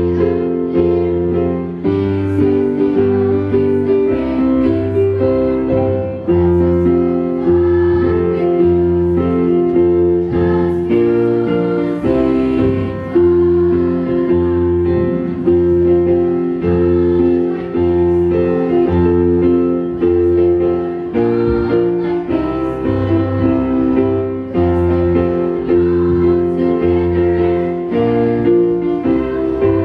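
A girls' choir singing with keyboard accompaniment, the voices moving through long held notes over a bass line.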